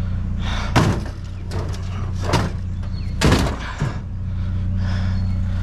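A few sharp knocks and clunks from handling a discarded computer in a dumpster, over a steady low hum.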